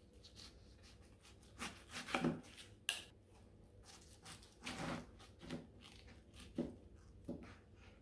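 Chef's knife cutting through a head of raw cabbage on a plastic cutting board: a series of crisp crunching cuts, some ending in a knock of the blade on the board, the sharpest about three seconds in.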